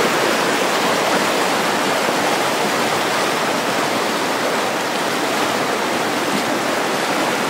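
Creek rapids rushing over rocks, a steady, even noise of fast-flowing white water.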